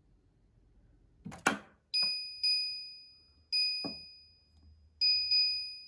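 An electric oven's control panel beeping as its buttons are pressed to set the temperature and cooking time: five short high beeps at uneven spacing, each fading quickly. A single knock comes just before the first beep.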